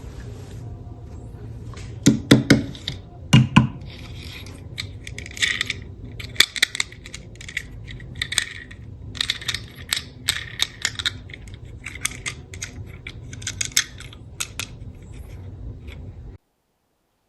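Hard plastic toy cars being handled, with irregular clicks and clatters over a steady low hum. The sound cuts off suddenly near the end.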